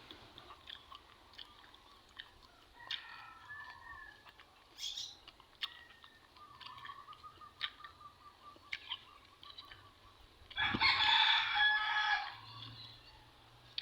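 A rooster crowing once, loud, about ten seconds in and lasting under two seconds. Before it, small scattered clicks and fainter drawn-out calls.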